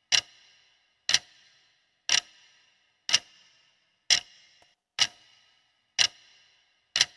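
Clock-style ticking sound effect, one sharp tick each second with a short ringing tail: a quiz countdown timer running down.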